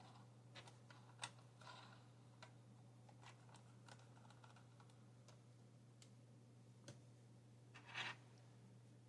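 Faint, scattered small clicks and taps of model train car parts being handled and test-fitted, with a brief rustle about eight seconds in, over a low steady hum.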